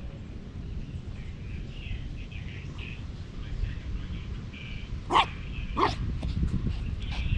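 Small dog barking twice, two short sharp barks about two-thirds of a second apart near the end, over a low steady rumble.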